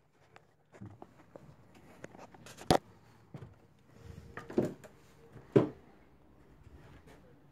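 Scattered knocks and clicks of walking and handling inside a boat's cabin. There is a sharp click a little under three seconds in and two louder thumps around five and six seconds in.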